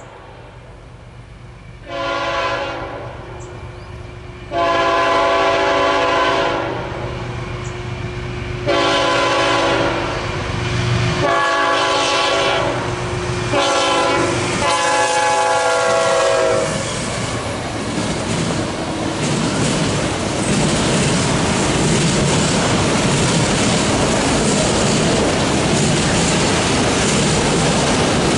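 BNSF freight locomotive's multi-chime air horn sounding a series of blasts: a short one, then long, long, short, long, the pattern of a grade-crossing warning, the final blast dropping in pitch as the locomotive passes. Then the steady rumble and clickety-clack of autorack cars rolling by.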